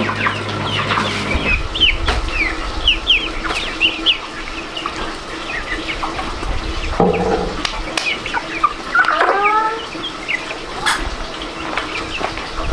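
Chickens clucking, with many short high chirps throughout and a louder call about nine seconds in. A low steady hum stops about a second and a half in.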